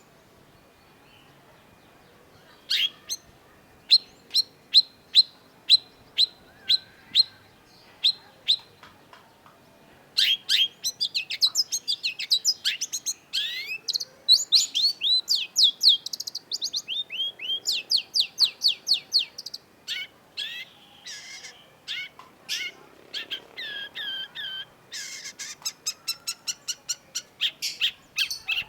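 Long-tailed shrike singing: after a short quiet, a string of sharp, evenly spaced notes about two a second, then from about ten seconds in a fast, dense run of varied chattering and down-slurred notes.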